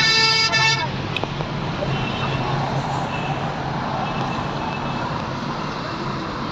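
Steady road noise and engine hum of a moving car, heard from inside the cabin. A short, steady horn honk sounds right at the start, lasting under a second.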